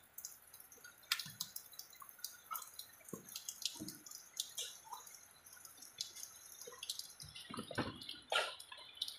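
Mason's trowel working wet cement mortar on a brick course: an irregular string of faint short wet slaps, taps and scrapes.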